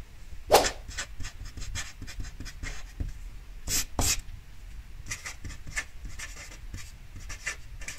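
Permanent marker pen writing on paper: a run of short, quick scratchy strokes as a big cross and letters are drawn, the loudest stroke about half a second in.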